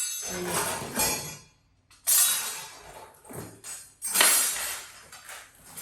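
Metal furniture parts clinking and jingling as they are handled, in several sharp bursts each a second or two apart, during flat-pack table assembly.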